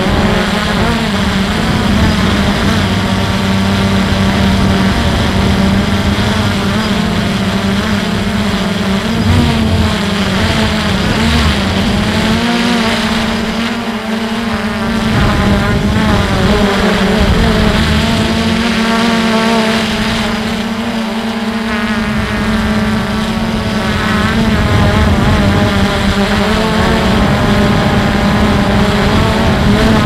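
Motors and propellers of a small camera drone in flight: a steady buzz whose pitch wavers up and down as it manoeuvres, with wind rumbling on the microphone.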